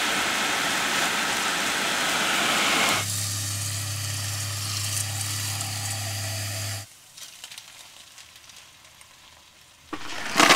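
Ground turkey sizzling in a frying pan for about three seconds. Then water runs from a faucet into a pot over a steady low hum, stopping suddenly about seven seconds in. A loud hiss returns near the end.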